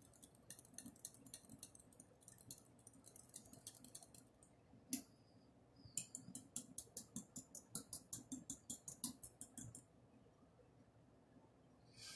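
A utensil stirring yogurt ranch dip in a glass jar, clicking lightly against the glass about five times a second. There are two runs of stirring with a pause between them, marked by a single louder clink.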